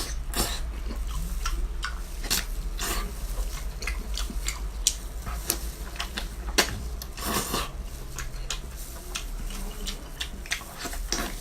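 Close-up eating sounds: a person chewing, with irregular wet smacks and clicks of the mouth, over a faint steady low hum.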